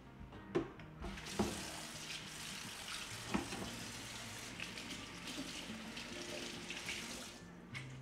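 Kitchen faucet running into a stainless steel sink, the stream splashing onto a dish cloth held under it, and shut off near the end. A few sharp knocks come about half a second and a second and a half in.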